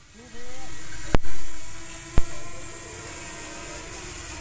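A camera drone's propellers hum steadily at one pitch. Two sharp knocks about a second apart are the loudest sounds.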